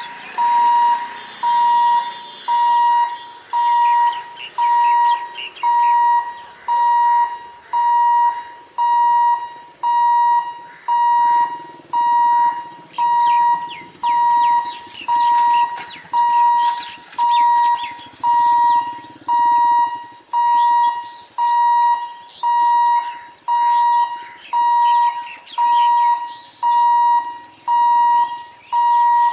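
Railway level-crossing warning buzzer beeping about once a second, a steady mid-pitched electronic tone, sounding to warn of an approaching train. Fainter scattered chirps and a low rumble sit beneath it.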